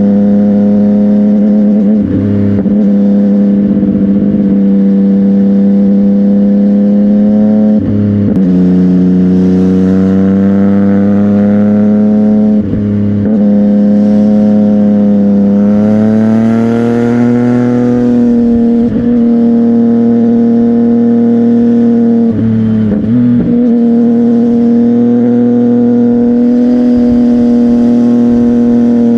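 CFMOTO 675NK three-cylinder engine running through a titanium aftermarket exhaust at fairly steady revs. The note dips briefly about five times and edges a little higher in pitch past the middle.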